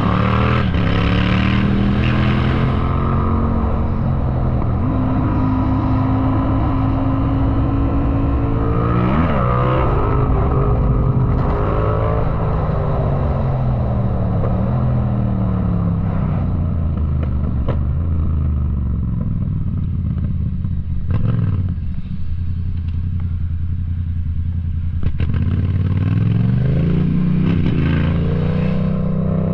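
Yamaha MT-07's parallel-twin engine under hard riding, revving up through the gears with the pitch climbing and dropping at each change, easing to a lower, quieter run through the middle with a few sharp clicks, then pulling hard again near the end.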